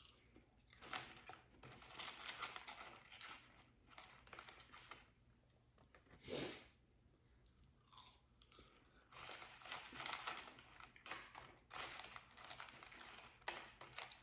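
Quiet close-up chewing of McDonald's food, with soft crunching in irregular bursts and one louder noise about six seconds in.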